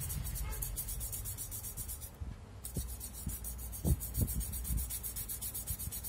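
Yamaha Aerox scooter engine idling with a rapid, even 'srek srek' scraping from the magneto behind the radiator. The rubbing comes from iron-bearing grit stuck inside the magneto's flywheel rotor, scraping against the stator as it turns.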